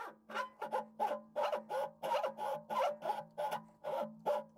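Lathe tool cutting a groove in a cast-iron Mack E9 V8 exhaust manifold. The tool scrapes in a regular rhythm of about three to four bites a second, the casting ringing on each bite, over a steady low machine hum. The cut is chattering with vibration.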